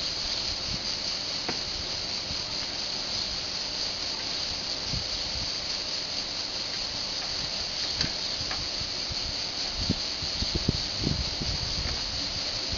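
Steady high-pitched whine from a MOTOmed motor-assisted pedal trainer running at fast pedalling speed, with a few faint knocks near the end.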